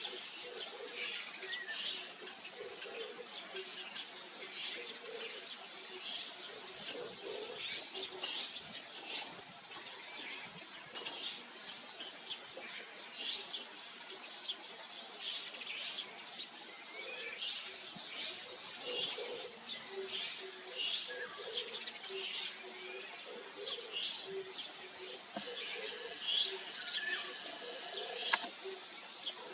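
Several small birds chirping and calling in quick, overlapping short notes, with a softer, lower repeated call beneath them.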